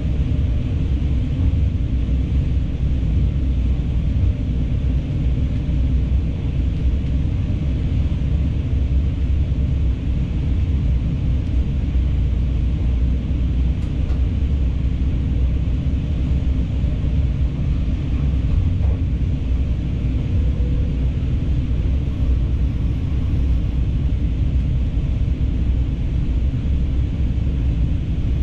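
Diesel multiple unit running along the line, heard from the driver's cab: a steady low rumble of engine and wheels on rail, with no change in pace.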